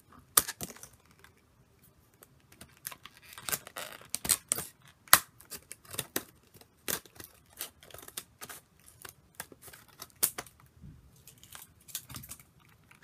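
Scissors cutting through a toy's stiff clear plastic blister packaging: a string of sharp, irregular snips, with the plastic crackling as it is worked open.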